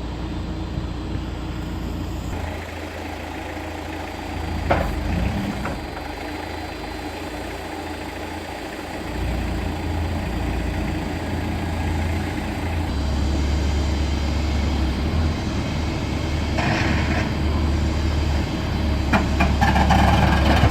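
Rough-terrain forklift engine running while it works a hitched snow blade. The engine grows louder about thirteen seconds in, and there are a few short knocks and bursts of scraping-like noise.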